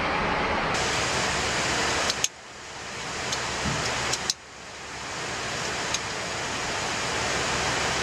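Steady rushing noise of airflow inside an airliner cockpit. Twice, about two and four seconds in, it is cut by a click and drops away, then swells back up over a second or two where the footage cuts from one clip to the next.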